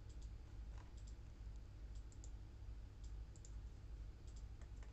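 Faint, scattered clicks of a computer mouse, a few single and double clicks, over a low steady hum.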